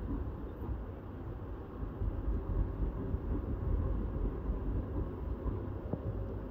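Wind buffeting the microphone over a low outdoor rumble of road traffic, uneven and gusty throughout.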